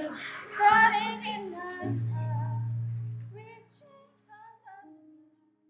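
A voice singing a slow, wavering melody that trails off and fades out, with a low steady note underneath for about a second and a half.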